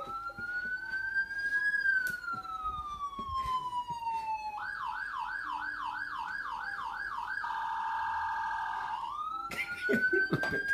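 Police-style siren: a slow wail rising and then falling over about four seconds, then a fast yelp warbling about three times a second, a short steady tone, and a rising wail again near the end.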